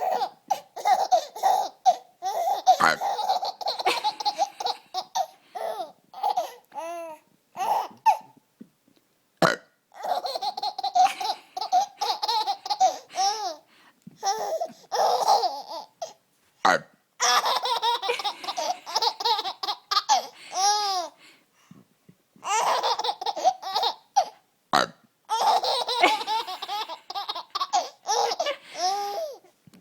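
A baby laughing in repeated bouts of giggles a few seconds long, set off by a woman's burps; short single burps fall in the pauses between the bouts.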